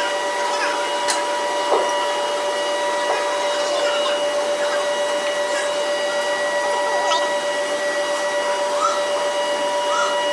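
Workshop machinery running steadily: a constant hiss carrying several fixed whining tones, with a few faint ticks over it.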